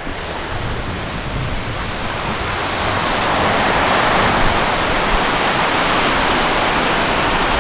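Ocean surf breaking and washing onto a sandy beach: a steady rushing noise that grows louder about three seconds in.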